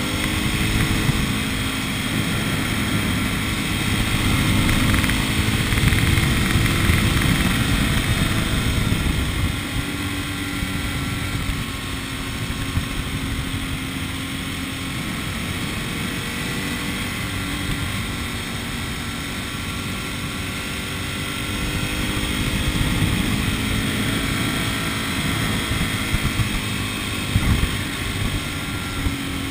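A road vehicle driving, with steady engine and road noise; the engine's pitch rises and falls gently as the speed changes.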